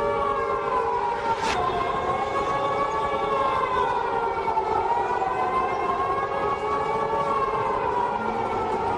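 Civil defense–style siren wailing as an emergency alert, its several-toned pitch sliding slowly down and back up in long cycles over a steady hiss.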